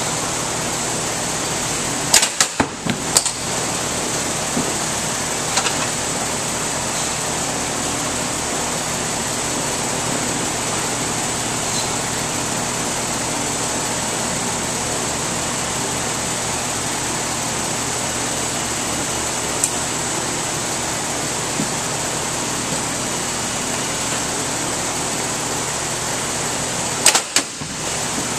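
A steady ventilation-like hum runs throughout. A short cluster of sharp knocks comes about two seconds in. Near the end, a packed corrugated carton drops from the drop tester onto the base plate with a few quick thuds and tumbles over.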